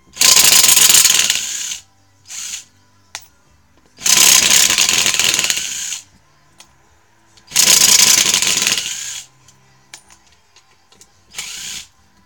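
A Chicago Electric 12V lithium-ion 1/4-inch hex impact driver hammering rapidly as it backs screws out of wood. There are three runs of a second and a half to two seconds each, plus two short blips of the trigger.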